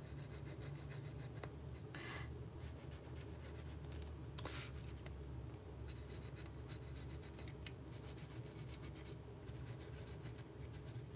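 Faint scratching and rubbing as the nozzle of a glue bottle is drawn along the edge of a cardstock strip and the paper is handled, with a few brief soft rustles, over a low steady hum.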